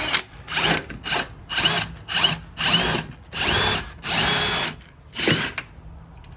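Hilti SF 6H-A22 cordless hammer drill driver run in about nine short trigger pulls, the motor spinning up and winding down each time, the later runs a little longer.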